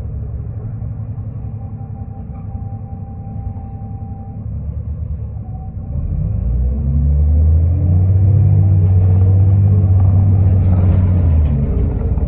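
Diesel engine of a New Flyer D40LF transit bus heard from on board, idling with a low steady rumble. About six seconds in the bus pulls away: the engine gets louder and its note rises as it accelerates, then holds before easing off near the end.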